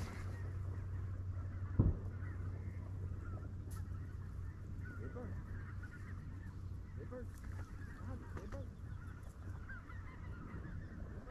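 A flock of geese calling in the distance, many short overlapping honks, over a steady low wind rumble, with a single knock about two seconds in.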